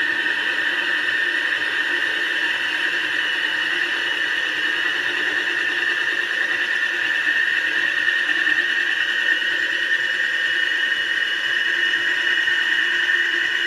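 Diamond-tipped hole saw on a cordless drill grinding through ceramic wall tile, giving off a steady high-pitched squeal.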